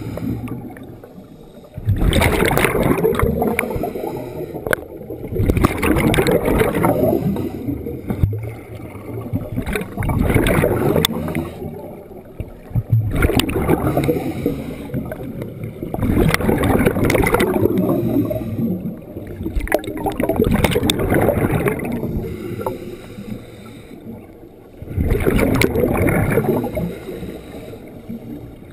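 Scuba regulator exhaust bubbles from the camera wearer's own breathing, heard through a head-mounted GoPro's underwater housing. A rushing burst of bubbles comes about every three to four seconds, with quieter gaps between breaths.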